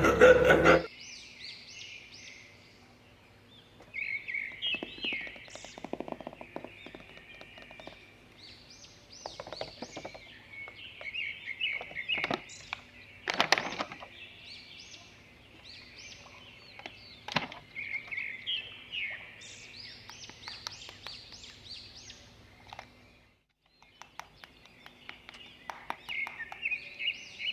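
Small birds chirping in quick repeated calls, with scattered light clicks and taps.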